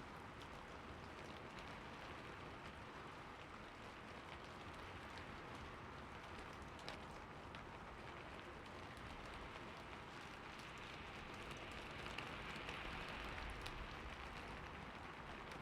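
Steady rain with scattered individual drop ticks, swelling slightly in loudness about twelve seconds in.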